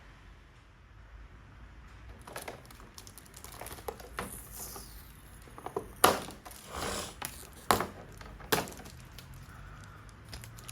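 Rustling and crinkling of paper and plastic packaging being handled, with several sharp clicks and taps.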